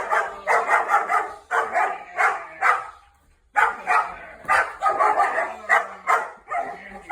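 A puppy barking over and over in short bursts, with a brief pause about halfway through.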